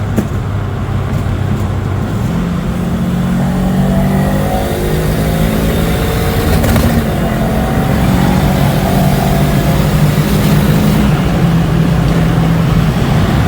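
Proton Wira's turbocharged 4G15 four-cylinder accelerating hard through the gears, the engine note climbing and then dropping at each of a few upshifts, made with the throttle lifted rather than flat-shifted. It has the Subaru-like rumble of unequal-length headers.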